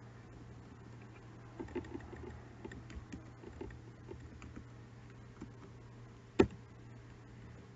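Computer keyboard being typed on, a scatter of light keystrokes with one much louder key press about six and a half seconds in, over a faint steady low hum.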